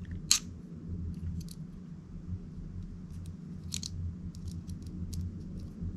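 Small screwdriver tightening the tiny mounting screws of a phono cartridge on a turntable headshell: scattered faint clicks and scrapes, the sharpest about a third of a second in, over a steady low hum.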